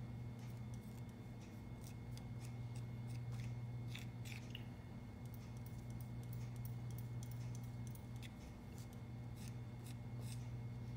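Metal spatula scraping and tapping on a smooth clear plate while linseed oil is worked into a powder to a putty-like paste: faint, irregular light scrapes and clicks. A steady low hum runs underneath.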